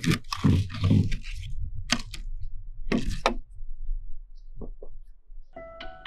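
Plastic container and bucket handling while a water pump is primed by hand: sharp knocks and crunches at about two and three seconds in. Background music with sustained tones comes in near the end.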